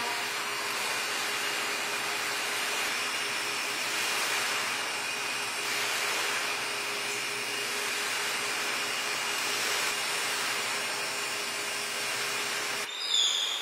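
Bubble machine's fan motor running with a steady whir. Near the end it drops away abruptly and a brief high tone sounds.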